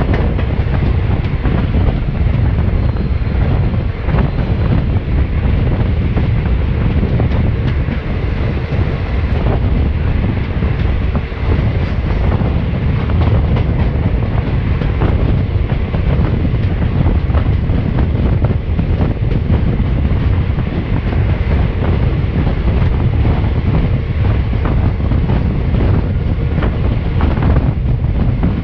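Wind rushing against the microphone at the open window of a moving passenger train, over the steady rumble of its wheels on the rails, with faint scattered clicks.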